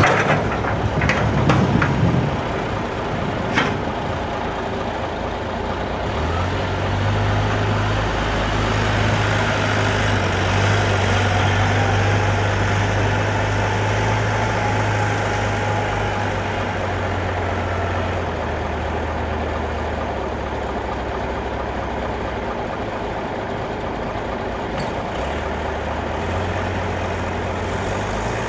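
Heavy diesel engines running: the Scania 110 Super's DS11 turbo-diesel idling close by while the wheel loader's engine works as it backs off and drives away. A few sharp knocks in the first couple of seconds, then a steady low hum that grows stronger about six seconds in and eases again around eighteen seconds.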